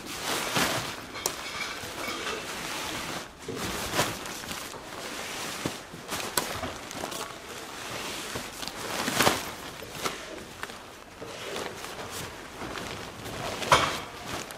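Synthetic tent fabric rustling and crinkling as a large tent is gathered up and folded by hand, with several sharper swishes of the sheeting, the loudest near the end.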